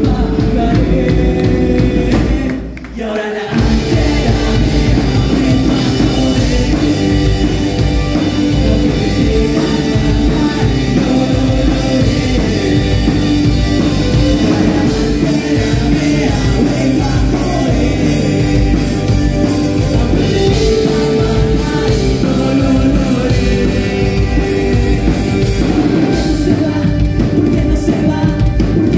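Rock band playing loud with a singer, drums and bass. The music drops out briefly about three seconds in, then the full band comes back in.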